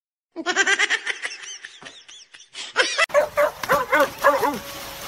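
A person laughing in rapid pulses. About three seconds in, this gives way to a dog whining and yipping in short, quick rising-and-falling calls.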